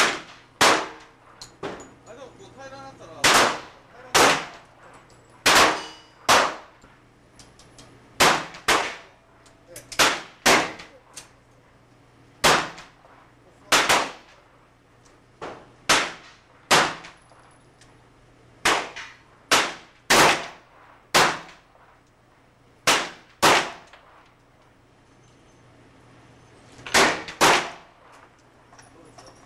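Handgun shots fired on an indoor range, about two dozen single shots at an uneven pace, sometimes in quick pairs, each with a short echo off the enclosed range. A pause of a few seconds comes near the end before a last quick pair.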